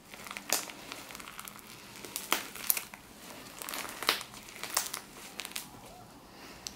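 Fluffy slime being handled, giving irregular crackles and sharp pops as air pockets burst. The loudest pops come about half a second in and near the middle.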